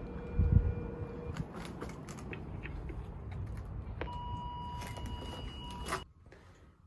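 Two long electronic beep tones from a device: a lower one for about a second at the start and a higher one about four seconds in that lasts two seconds and cuts off sharply. Scattered clicks and a dull thump sound about half a second in.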